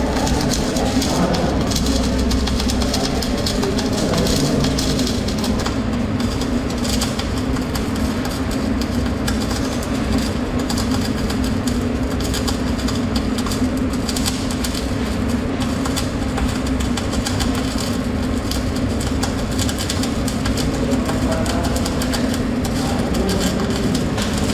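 MIG welding arc crackling steadily, a dense continuous crackle over a steady low hum, without a break.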